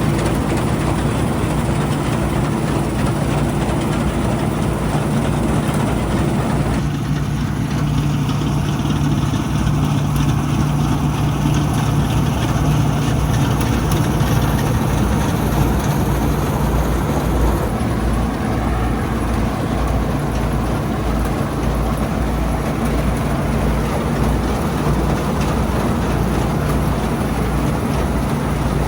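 Old Bizon combine harvester running steadily while working, a continuous diesel engine drone with the hum of its machinery.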